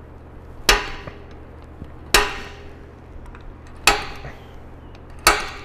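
Spring-loaded automatic center punch snapping against an aluminum roof-rack plate four times, about a second and a half apart, each a sharp metallic click with a short ring, dimpling the spots for the light pod's screw holes.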